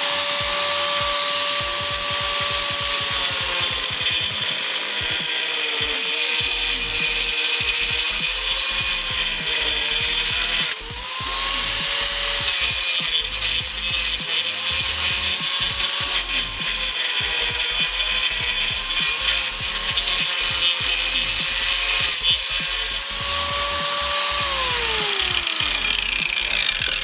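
Black+Decker G650-IN 650 W angle grinder with a toothed wood-cutting disc, sawing into a block of wood. Its high motor whine sags in pitch each time the blade bogs down in the cut. Near the end it winds down after being switched off, the whine falling steadily.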